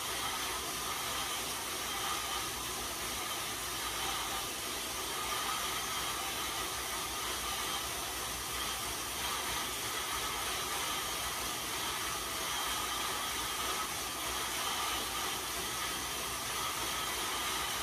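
Cervelo road bike's tyres spinning on InsideRide rollers under steady pedalling: an even, unbroken whirring hiss.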